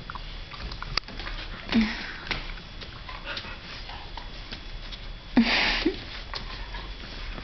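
Two dogs, a Thai Ridgeback and a Flat-coated Retriever, sniffing and making small close-up nose and mouth noises. Two louder short huffs come about two seconds in and about five and a half seconds in, the second the louder.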